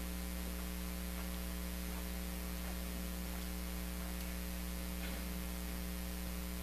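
Steady electrical mains hum, a low buzz with a few steady overtones, over a faint hiss.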